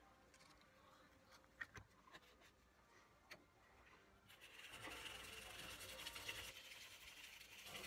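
Faint scratchy rubbing of a small paintbrush stroking paint onto a carved wooden fishing lure, starting about four seconds in and continuing steadily. Before it come a few light ticks as the brush is worked in a small paint pot.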